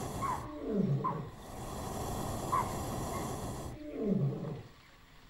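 Asiatic lion roaring: two long calls falling in pitch, about a second in and again near four seconds. Between them a loud, steady rushing noise starts and stops abruptly.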